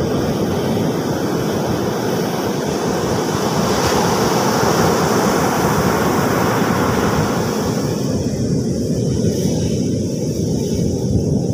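Ocean surf breaking and washing up the sand: a loud, steady rush, with a hissing wash of foam that swells a couple of seconds in and fades about eight seconds in.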